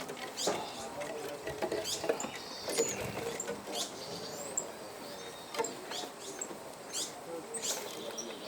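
Small birds giving short, high chirps and brief calls, with light tapping and scratching sounds in between.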